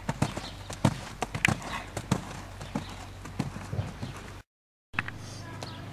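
Hoofbeats of a ridden horse on sand arena footing: a run of sharp strikes, two or three a second. About four and a half seconds in they stop and the sound cuts out briefly.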